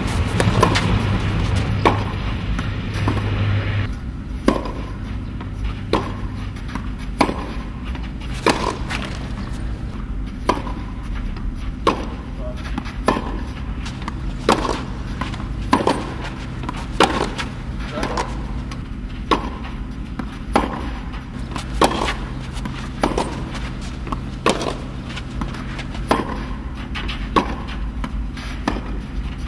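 Tennis balls struck by rackets in a baseline rally, with ball bounces, giving sharp pops about once a second.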